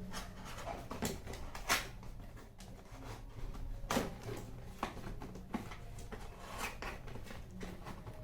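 Hands tearing the seal strips of a phone's retail box and handling its cardboard and plastic: irregular crackles, scrapes and small snaps, with two sharper snaps near 2 and 4 seconds in.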